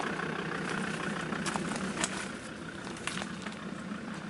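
Off-road vehicle's engine running slowly, pushing through dense brush, with a few sharp snaps of twigs and branches against the car.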